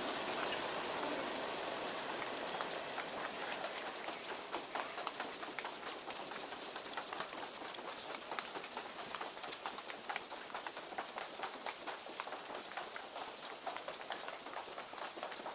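Footsteps of several people walking on a hard tiled floor: a quick, uneven patter of many steps, over a steady hum of hall noise that fades after the first couple of seconds.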